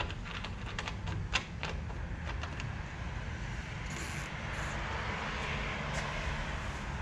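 Plastic crossbar dent puller being tightened on a car roof panel: scattered small clicks and creaks from its knob and legs as the glued pulling tab is drawn up against the dent.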